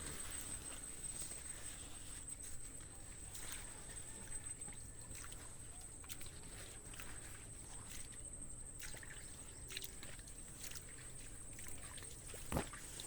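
Outdoor ambience with faint water sloshing, a steady high-pitched whine and scattered light clicks, with one sharper knock near the end.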